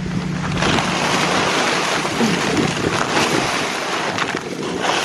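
Wind buffeting the microphone outdoors, a loud, uneven rushing noise with a few short knocks or rustles in it.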